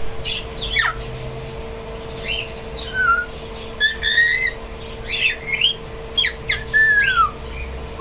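African grey parrot whistling and squawking: a string of short sliding whistles, some falling steeply and some rising, with a longer falling whistle near the end. A faint steady hum runs underneath.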